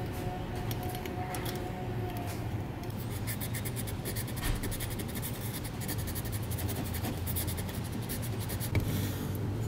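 Light scratching and rubbing of metal on metal as a piston is pushed by finger inside a cast-iron refrigeration compressor's cylinder, with scattered small clicks over a steady low hum.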